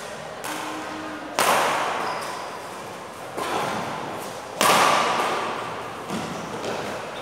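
Badminton rackets striking a shuttlecock in a doubles rally: a series of sharp hits, the two loudest about three seconds apart, each echoing in the large hall.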